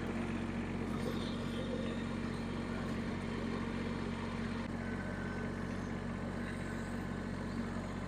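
Kubota BX2380 compact tractor's three-cylinder diesel engine running at a steady, even idle.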